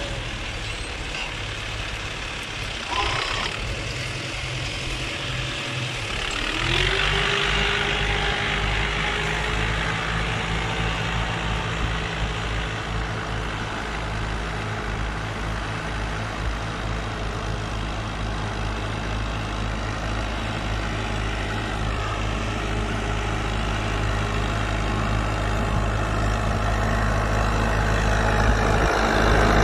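Fiat 640 tractor's four-cylinder diesel engine running steadily under load while pulling a plough, getting louder as it comes close near the end.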